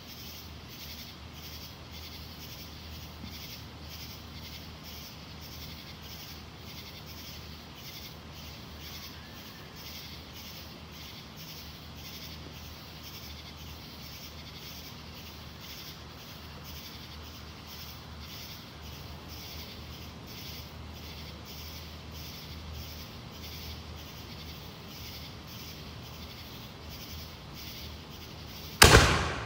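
Night insects chirping in a steady high-pitched rhythm, about two pulses a second, over a low steady hum. Near the end a firework goes off with one sharp, loud bang that dies away.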